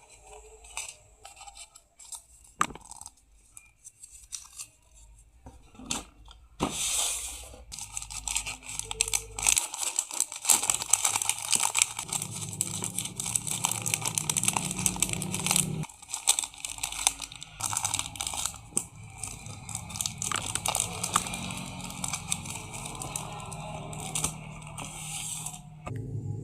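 Hands handling packaging: plastic and paper crinkling and rustling, with tearing, scrapes and sharp clicks. It is sparse at first and becomes dense and continuous from about seven seconds in.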